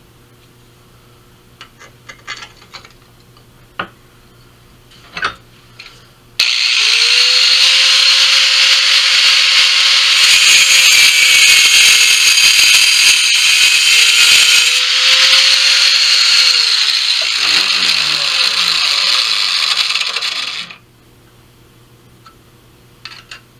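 Angle grinder with a cutoff wheel cutting through a piece of sheet metal: it starts about six seconds in, runs loud for about fourteen seconds with its motor pitch dipping midway under load, then winds down and stops. Light clicks and taps of handling come before it.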